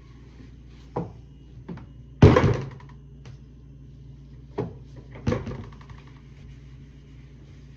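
Knocks and clatters from handling things at an open refrigerator, the loudest a clatter about two seconds in and another about five seconds in, over a steady low hum.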